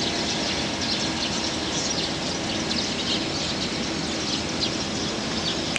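Steady outdoor background noise with a faint steady hum and many light, short high-pitched flecks through it.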